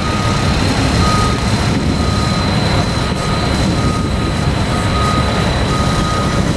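A heavy truck's diesel engine runs with a steady low rumble while towing a house on a multi-axle moving dolly. A backup alarm beeps about once a second over it.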